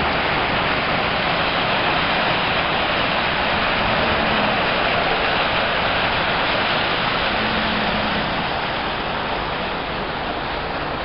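Steady rushing and splashing of water pouring down a tiered cascade fountain, easing a little near the end.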